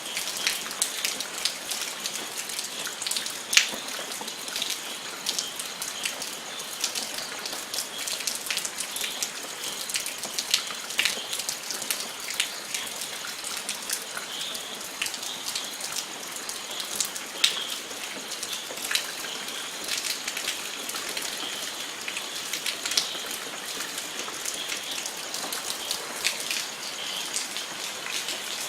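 Steady rain falling, a continuous hiss with many close individual drops pattering and ticking on a surface.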